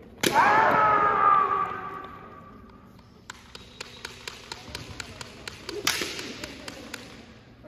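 Kendo kiai: a loud drawn-out shout from a fencer, starting suddenly about a quarter second in with a strike and fading over a second or so. From about three seconds in, bamboo shinai tap and clack against each other in a run of light sharp clicks, about three or four a second, with a louder hit near six seconds in.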